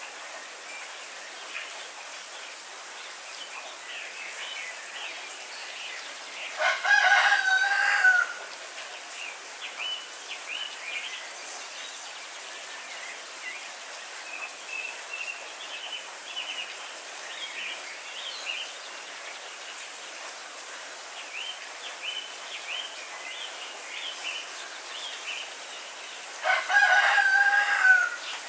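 A rooster crowing twice, about seven seconds in and again near the end, each crow under two seconds and ending on a falling note. Underneath are steady heavy rain and the short chirps of small birds.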